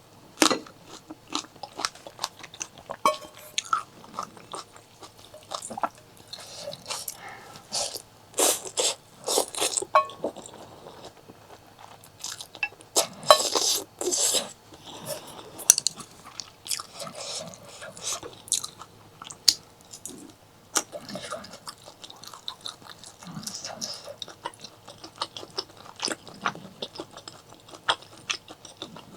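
Close-miked mouth sounds of a person eating: chewing and biting food with dense, irregular wet clicks, busiest about a third of the way in and again near the middle.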